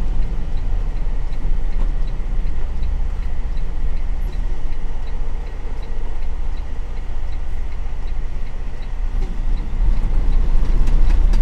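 A semi-truck's turn signal ticking about twice a second inside the cab, over the steady low rumble of the truck's engine and road noise during a right turn.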